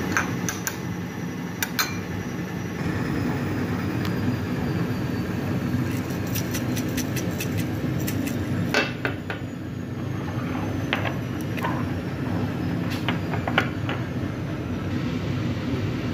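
Sharp clinks and clicks of a metal spoon, seasoning jars and a glass bowl while a dressing is mixed, including a quick run of clicks about six seconds in. They sit over a steady low rumble.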